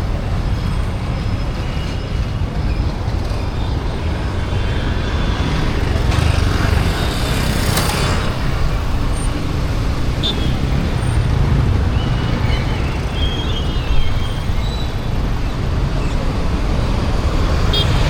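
Busy street ambience: steady road-traffic rumble from passing vehicles with faint voices of a crowd, and a short hiss about eight seconds in.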